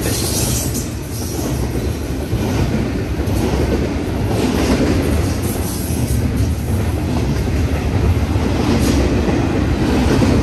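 Union Pacific freight train of double-stack intermodal container cars rolling past close by: a steady rumble and rattle of steel wheels on the rails.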